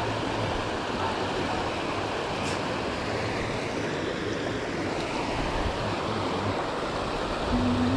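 River rapids rushing over rocks: a steady noise of white water.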